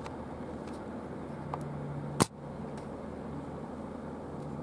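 A freight train's rumble on the rails as it moves away, a steady low noise with a faint hum. A single sharp click cuts through about two seconds in.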